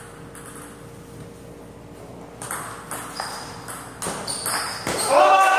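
Table tennis ball clicking sharply off paddles and table in a rally, a run of ticks a few tenths of a second apart. Near the end a voice rises as the point ends.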